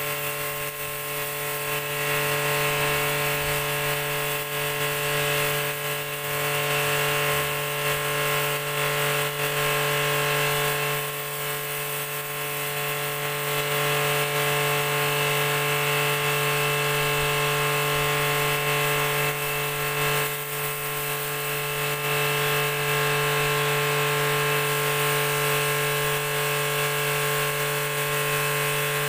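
High-pressure washer running steadily: the pump motor hums under the hiss of the water jet spraying onto a concrete floor.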